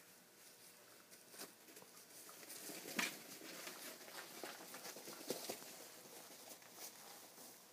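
Faint scuffling and pattering of corgi puppies tussling over a plush snake toy on bedding: light rustles and scattered small taps, with one sharper tap about three seconds in.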